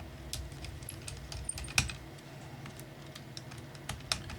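Small irregular clicks and taps of a screwdriver working screws out of a laptop's plastic and metal casing, two of them sharper, about two seconds apart.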